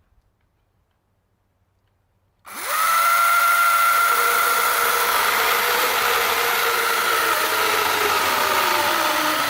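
48-volt battery electric chainsaw with a 14-inch bar. After a couple of seconds of near silence its motor spins up quickly to a steady high whine and runs on through a cut in a dry log. One lower tone sags slowly in pitch in the second half as the chain takes the load.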